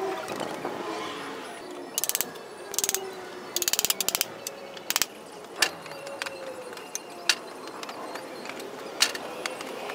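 Wooden pallet being pried apart with a crowbar and hammer: scattered sharp knocks and short rattling bursts of rapid clicks, with faint wavering squeaks.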